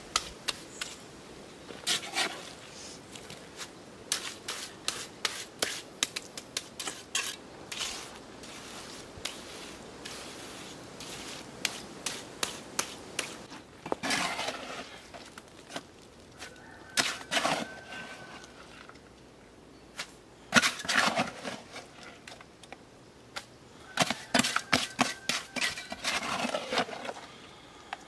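Mortar being scraped and worked along the top of a volcanic-stone dry wall: an irregular run of scrapes and clinks against stone, with several louder bursts of scraping as more is tipped out of a bucket and spread.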